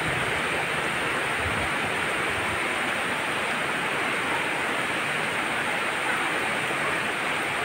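Heavy rain falling steadily: a constant, even hiss of rain.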